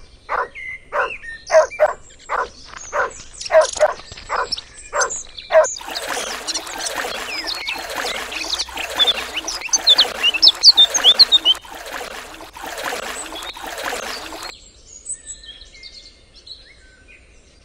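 A run of short, repeated animal calls, about two or three a second. Then a dense chorus of many birds chirping at once, which cuts off suddenly.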